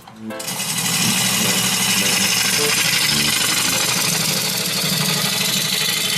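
A power tool running steadily while cutting wood, with a loud, even hiss over a low motor hum; it starts just after a brief pause.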